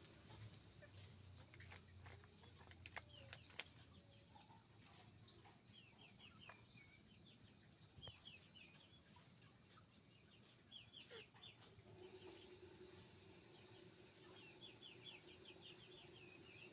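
Chickens on a chicken farm clucking faintly, with quick runs of short high chirps and scattered clicks. A steady hum comes in about twelve seconds in.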